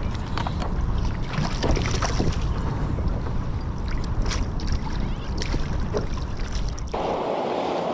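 Wind buffeting the microphone over water slapping and splashing beside a kayak as a hooked trevally is brought into a landing net, with scattered small clicks. About a second before the end the rumble stops and a steadier hiss takes over.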